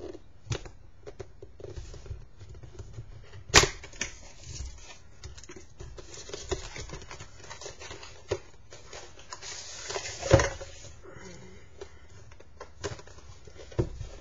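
Hands opening a product's box packaging: irregular small clicks, scrapes and rustles, with two sharp knocks, about three and a half and ten seconds in, and a short burst of rustling just before the second.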